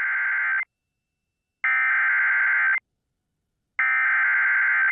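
Emergency Alert System SAME header: three bursts of digital data tones, each about a second long with a second's silence between, the first already under way at the start. The repeated header carries the alert's coded event type and affected areas.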